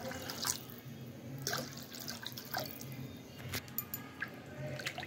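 Watery masala gravy bubbling in a pan as it heats toward the boil, with scattered soft plops of bursting bubbles over a faint low hum.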